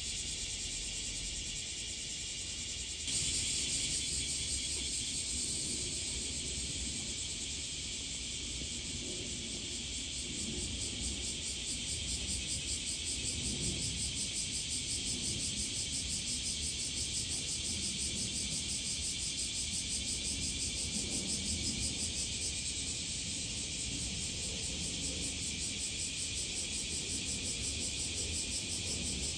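Summer insect chorus, most like cicadas: a dense, steady high hiss with fine rapid pulsing, stepping up in loudness about three seconds in.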